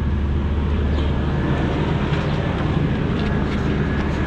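Toyota 1UZ-FE 4.0-litre V8 with VVT-i idling steadily, running on a Link aftermarket ECU fitted through a plug-in adaptor.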